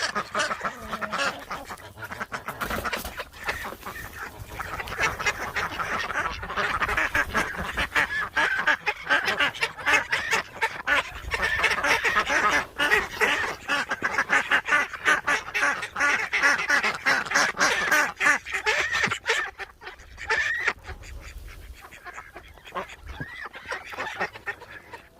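A flock of call ducks and runner ducks quacking in a rapid, overlapping chorus that thins out after about twenty seconds.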